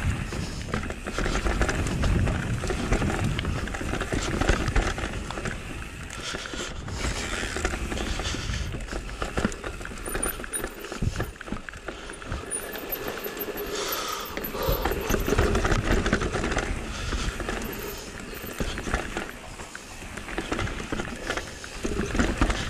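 Electric mountain bike riding down a rough trail: tyres rumbling and clattering over rocks, roots and a wooden boardwalk, the bike rattling with each hit, with wind rumble on the microphone.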